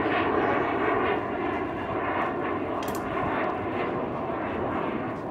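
Engine of a passing airplane overhead, a steady sound that slowly fades away.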